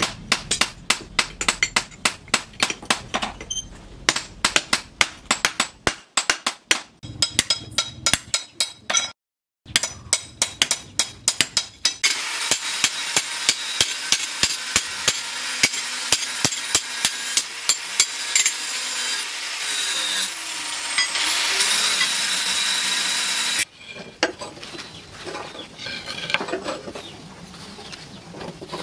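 Hand hammer beating red-hot axe steel on a steel-post anvil, rapid ringing blows about four a second, with a brief break about a third of the way in. From a little before halfway a loud steady hiss runs under the blows and cuts off suddenly, leaving quieter scattered knocks near the end.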